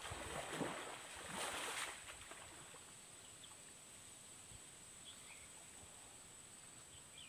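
Pond water splashing and sloshing as a man wading neck-deep hauls and shakes a gill net, loudest in the first two seconds. After that, only a faint outdoor hiss with a few small high chirps.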